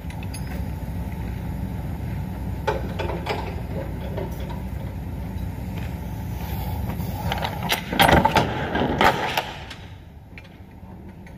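Semi truck's diesel engine idling steadily, with a few sharp knocks about three seconds in and a louder cluster of knocks and rattles around eight to nine seconds in.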